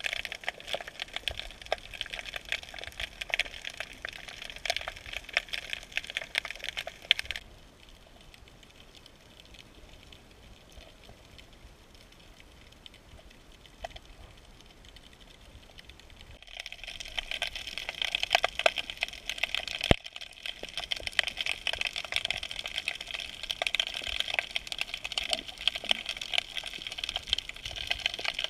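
Dense crackle of snapping shrimp heard underwater through a submerged camera, a steady fizz of tiny clicks. It falls away to a faint hiss for about nine seconds in the middle, then comes back.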